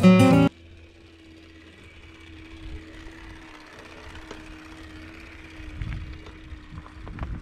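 Acoustic guitar music cuts off about half a second in. What follows is an off-road handcycle rolling on a dirt fire road: a faint steady hum at one pitch, low rumble and small scattered ticks from the tyres on the dirt.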